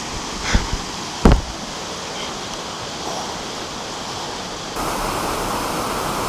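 Waterfall rushing steadily, swollen by monsoon rain, with two short thumps about half a second and just over a second in. The rush gets a little louder about five seconds in.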